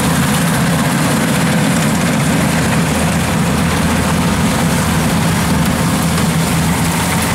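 Kubota rice combine harvester running steadily while cutting and threshing ripe rice, a low engine hum under a dense machine clatter. Strong wind buffets the microphone.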